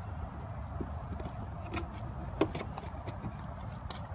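A few light, scattered clicks and taps from the plastic tail-lamp housing and its clips being handled, over a steady low hum.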